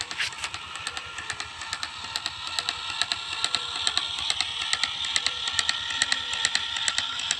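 Small motor of a PVC-pipe miniature walking tractor running, with a steady whine and a rapid, irregular ticking.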